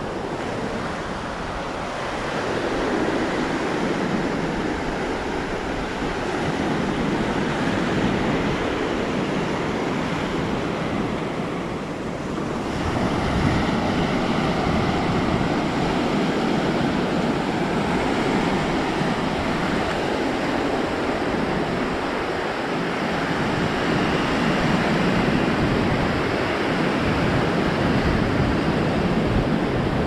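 Ocean surf washing up on the beach: a continuous rush of breaking waves that swells about two seconds in, eases briefly near the middle and builds again, with some wind on the microphone.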